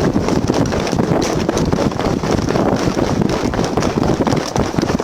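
Officer's body-worn camera jolting during a foot chase: rapid running footfalls, rattling gear and wind rushing over the microphone.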